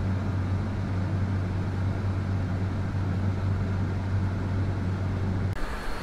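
John Deere X9 1100 combine heard from inside its cab while harvesting and unloading: a steady low engine and machinery drone. About five and a half seconds in it cuts abruptly to a hissier, brighter machine noise.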